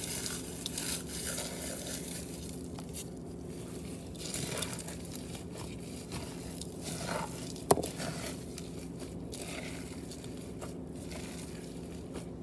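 Saltine crackers being crumbled into raw ground-beef meatloaf mixture, which is then worked by hand in a bowl: irregular crumbling, squishing and scraping, with one sharp tap a little past halfway.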